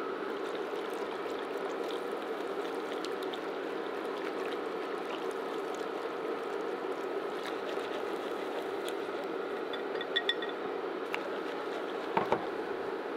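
Wire whisk stirring hot milk and cream in a nonstick pan while the egg-yolk mixture is poured in, over the steady hum of an electric cooktop. Several sharp clinks come in the last few seconds.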